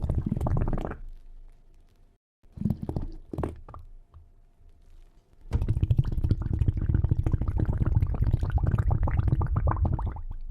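Bubbling water sound effect: a short burst of bubbles at the start, a few separate bubble bursts about three seconds in, then a dense, rapid stream of bubbling from about five and a half seconds on.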